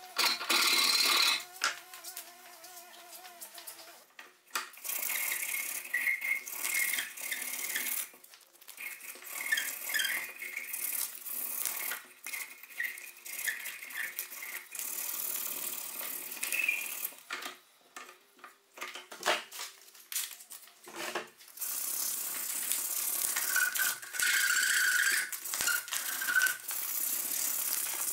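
Hand work on a wooden knife handle: scattered rubbing, handling and light knocks, then a run of steady scraping strokes over the wood near the end.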